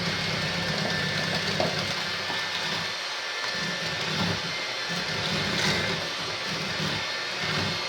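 Electric mixer running steadily, beating the wet muffin batter of eggs, pumpkin, oil and sugar, with an uneven low churning as the beaters work through it.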